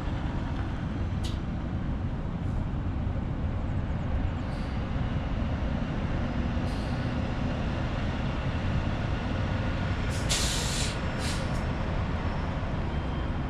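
Tour coach bus engine running as the bus pulls in, with a few short air hisses and one loud hiss of its air brakes about ten seconds in as it comes to a stop.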